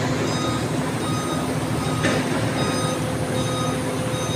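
Low-loader truck reversing: its diesel engine runs steadily while the reversing alarm beeps over and over.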